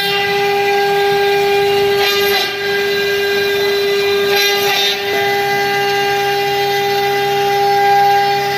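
1325 CNC router spindle running at high speed with a steady, high-pitched whine while its bit cuts into a metal puff panel door. Two short bursts of harsher cutting noise come about 2 and 4.5 seconds in, and a lower hum joins about halfway through.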